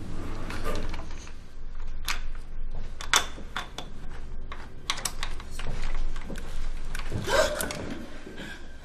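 Metal door security chain clinking and rattling against a wooden door, in a string of sharp clicks and knocks as the chained door is pushed and handled. Near the end comes a short, wavering sound.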